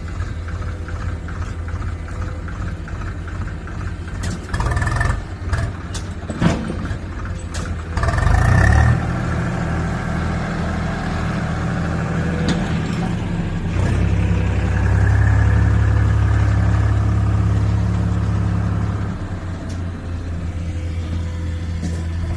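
Diesel engines of a Swaraj 735 FE tractor and a hydraulic excavator running, with clattering knocks and a loud rush about eight seconds in as a bucket of soil is dropped into the tractor's trolley. The engine grows louder for several seconds in the middle as the loaded tractor pulls away.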